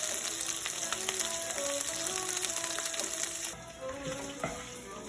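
Chicken sizzling in a frying pan over background music with a melody. The sizzle drops off sharply about three and a half seconds in, leaving the music and a few light utensil clicks.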